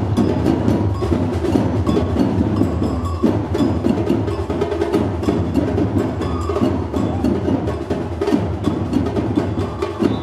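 Batucada percussion ensemble playing a dense, steady drum rhythm, with sharp wooden or bell-like accents over a deep bass drum pulse.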